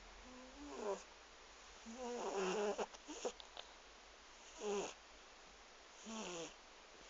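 Domestic cat snoring in its sleep: about five short, pitched snores, one every second and a half or so, each sliding down in pitch.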